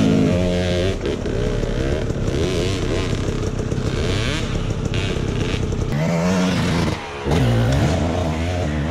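Dirt bike engine running and revving, its pitch rising and falling, with clatter over it. The sound dips briefly about seven seconds in, then picks up again.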